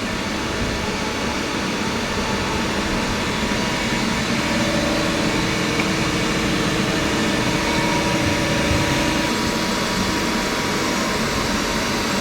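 CNC machine running: a steady mechanical hum and hiss with faint whining tones, getting slightly louder a few seconds in.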